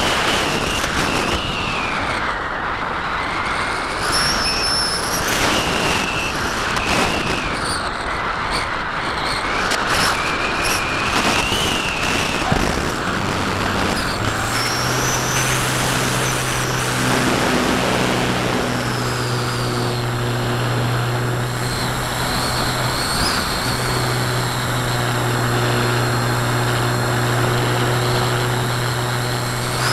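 Wind rushing over an action camera mounted on a Parkzone Radian electric glider as it glides. About 13 seconds in, its Firepower 10 brushless motor starts and the folding propeller runs with a steady low drone.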